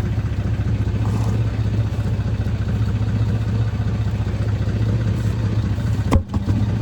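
The 1990 Toyota pickup's engine idling steadily, heard close to its exhaust. A single sharp click comes near the end.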